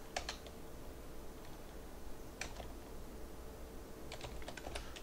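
Sparse computer keyboard keystrokes: a few quick clicks at the start, a single one about halfway, and a small cluster near the end, as a bone layer name is typed in.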